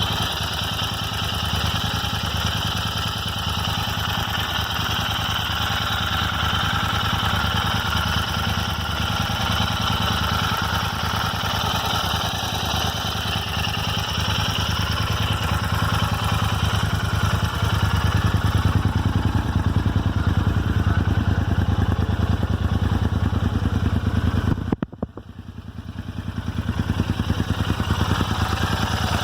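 Royal Enfield Interceptor 650's parallel-twin engine idling steadily, with the random ticking from the left rocker cover area that the owner likens to a clock's second hand and that the dealer has not been able to diagnose. Near the end the sound drops away suddenly and swells back over a couple of seconds.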